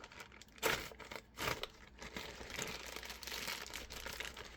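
Mailing package crinkling and tearing as it is cut open with a pocket knife: two louder rips around the first second, then steady crinkling of the packaging.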